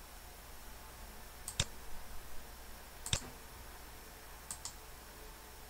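A few faint computer mouse and keyboard clicks: one about a second and a half in, another near three seconds, and a quick double click about four and a half seconds in.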